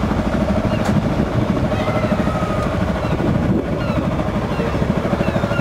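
Sailing yacht's inboard engine running steadily under way. It is running with a failed heat sensor on the pump that has not yet been repaired. A few gull calls sound over it.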